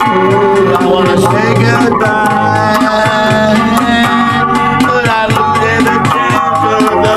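Music: a guitar played with keyboard and a steady drum beat, and a man singing along.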